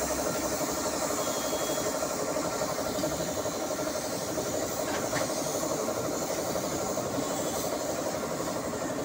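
Air compressor running steadily with a fast, even pulsing, together with the air hiss of a gravity-feed spray gun spraying paint.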